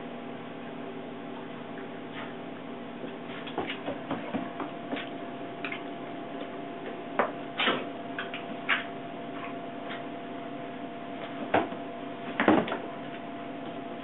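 Two puppies playing on a hardwood floor: scattered short clicks and scuffles, with a few sharper ones in the second half, over a steady hum.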